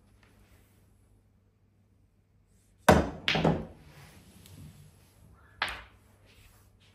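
Sharp knocks of pool balls and cue on a small pool table: two knocks close together about three seconds in, the first the loudest, then a weaker knock a couple of seconds later.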